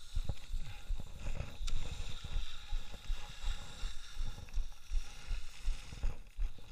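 Skis sliding and carving on groomed snow, an even hiss, with wind buffeting the microphone in irregular low thumps.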